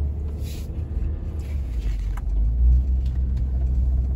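Parking shuttle bus engine idling close by: a steady, loud low rumble.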